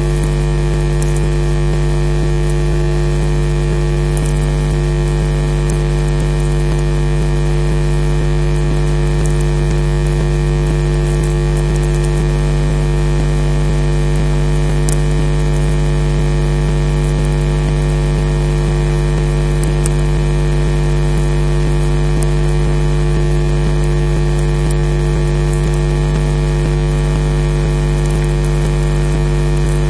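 Steady electrical hum and hiss: a buzz made of many steady tones that does not change, with a few faint ticks here and there.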